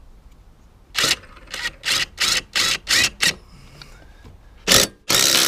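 DeWalt cordless drill with a socket extension driving the blade bolt home on a rotary mower, run in short trigger bursts. About seven quick bursts come over two seconds, then two longer runs near the end as the bolt tightens down.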